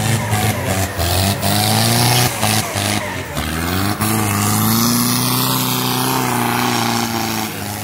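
Off-road 4x4 vehicle's engine running under throttle, its pitch rising about three seconds in and holding high as it revs. Several sharp knocks or bumps are heard in the first few seconds.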